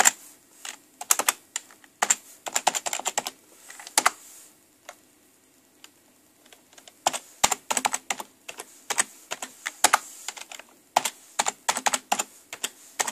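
Computer keyboard typing: quick clusters of keystrokes as a console command is finished and entered, then, after a pause of about two seconds, two more runs of keys as a password is typed and then typed again.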